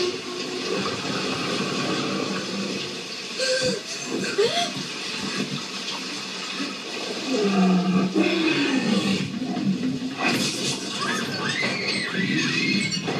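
Film soundtrack playing on a TV: steady heavy rain with a large dinosaur's low roars, and high cries near the end.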